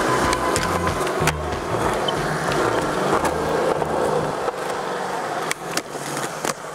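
Skateboard wheels rolling on smooth concrete, with several sharp clacks of the board, the last ones near the end as the skater pops onto a concrete ledge.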